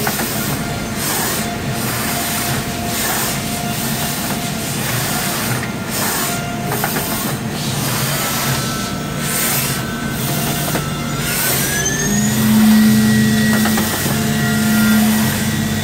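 Makino horizontal machining centre running with flood coolant: a steady hiss of coolant spraying over the spindle and tooling, with a faint spindle whine. About eleven seconds in the whine rises in pitch and holds higher, joined by a low hum, as the spindle speeds up.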